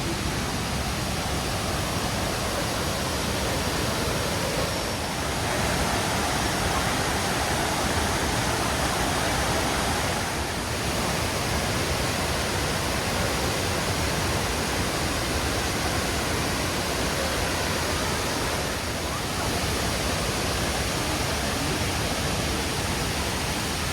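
Waterfall: a steady, dense rush of falling water, with brief slight dips about 5, 10 and 19 seconds in.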